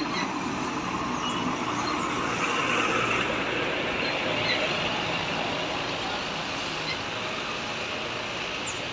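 Large diesel tour coaches running at close range: a steady engine rumble with a hiss of traffic noise, as one coach idles at the departure bay and another pulls away.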